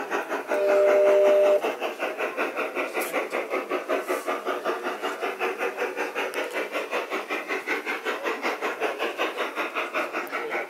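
Gauge one model steam locomotive running with a steady chuffing of about four beats a second. About half a second in, its whistle gives one blast of several notes at once, lasting about a second.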